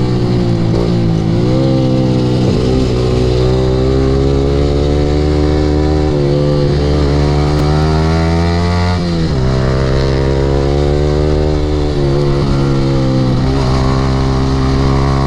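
Yamaha R15's single-cylinder engine running through an aftermarket Akrapovic exhaust under riding load. The engine note climbs steadily for several seconds, drops sharply about nine seconds in as the revs fall, then holds and rises again near the end.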